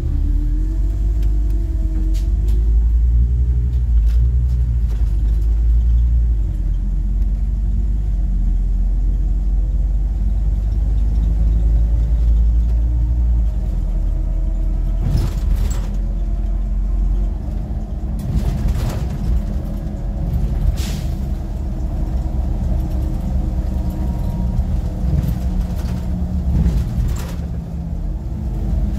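Scania CN270UB city bus heard from the driver's cab: the diesel engine runs under way with a steady low rumble, its pitch rising and falling in the first few seconds. Several short hisses of air, typical of the air brakes, come in the second half.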